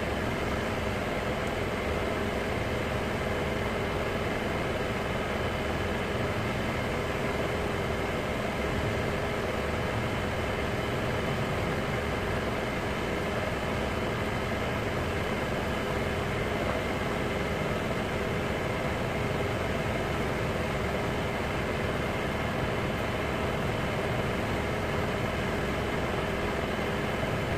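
A steady machine hum that holds constant throughout, with several fixed tones over a noisy drone.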